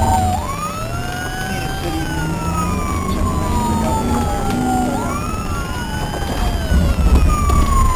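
Police car siren on wail, its pitch rising quickly and then falling slowly about every four and a half seconds, over the patrol car's engine and road rumble, which grows louder near the end.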